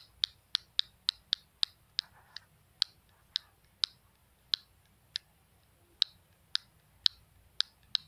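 A plastic fidget cube's on/off toggle switch being flicked back and forth, giving sharp, light clicks. The clicks come quickly, about four a second, for the first two seconds, then slow to an irregular one or two a second.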